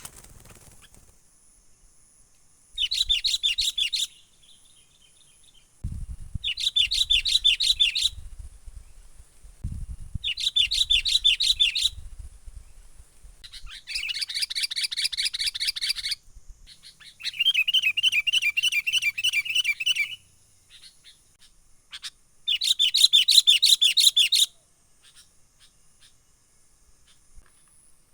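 Sooty-headed bulbul (kutilang) calling in six bursts of fast, repeated high notes, each lasting one and a half to three seconds with short pauses between. It is the excited 'menggaruda' lure call used to work up wild bulbuls.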